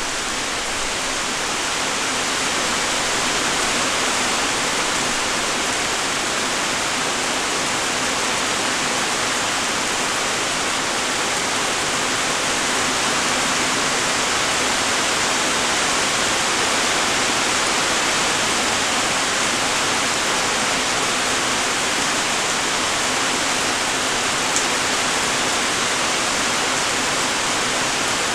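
Steady light rain: an even hiss of many small raindrops falling, with one sharper single drop tick near the end.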